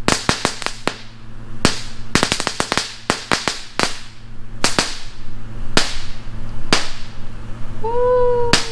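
Crackling ground firework going off in sharp, irregular pops and cracks, some single and some in quick clusters of several.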